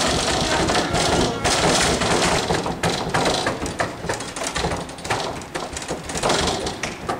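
Irregular thuds and bangs against a closed pair of wooden push-bar double doors.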